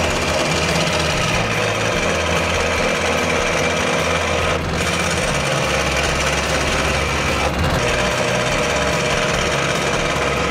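Ryobi scroll saw running steadily, its up-and-down blade cutting through a wooden board.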